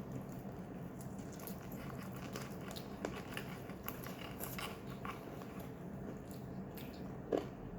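People eating fried-chicken takeaway: faint chewing and small scattered clicks of food handling, one louder click near the end, over a steady low hum.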